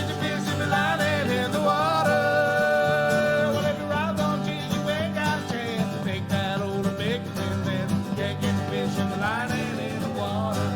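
Country song with guitar accompaniment, its melody carried on long held notes that slide in pitch between phrases.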